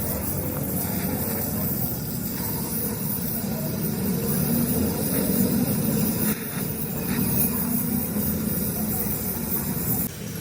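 Steady engine-like mechanical rumble, with indistinct voices in the background; it drops off abruptly about ten seconds in.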